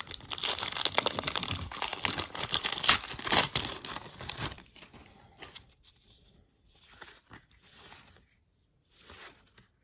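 Paper wrapper of a 1991-92 Score hockey card pack being torn open and crinkled by hand, a dense crackling for the first four seconds or so. After that, only faint rustles of the cards being handled.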